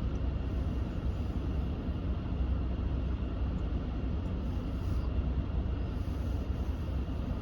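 Steady in-cabin noise of a pickup's HVAC blower fan running on speed 5 with the air conditioning on, over the low rumble of the idling engine.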